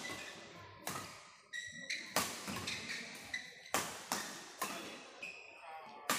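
Badminton rackets hitting the shuttlecock in a fast doubles rally: about six sharp hits roughly a second apart, each ringing briefly in a large echoing hall. Short high squeaks of shoes on the court come between the hits.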